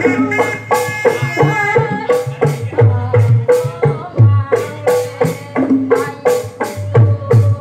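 Gondang lesung music: long wooden pestles pounding in turn into a wooden rice-mortar trough, a quick, even rhythm of hollow wooden knocks, with a woman singing over it through a microphone.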